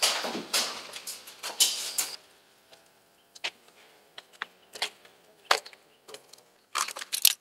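Footsteps on concrete in an echoing hallway, about two a second, stopping about two seconds in. After that come a few faint scattered taps and scuffs.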